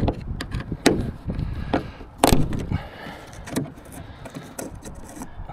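Scattered sharp clicks and knocks of a flathead screwdriver working quarter-turn fasteners on the metal cover of a bus's rooftop air-conditioning pod, the loudest a bit over two seconds in. Wind rumbles on the microphone at the start.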